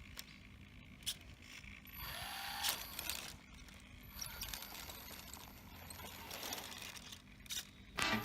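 3D-printed RC Jeep Willys 4x4 driving, its brushless outrunner motor and printed gearbox whirring and clattering in uneven bursts, with a short rising motor whine about two seconds in.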